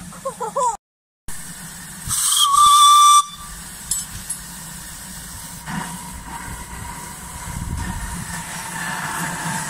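Miniature 7¼-inch gauge De Winton vertical-boiler steam locomotive blowing its steam whistle once, a steady whistle about a second long starting around two seconds in, followed by steady steam hissing.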